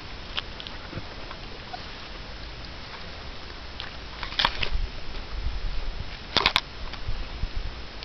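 Handheld camera handling noise: a pair of sharp clicks about halfway through and three quick clicks near the end, with low rumbling bumps between them as the camera is moved.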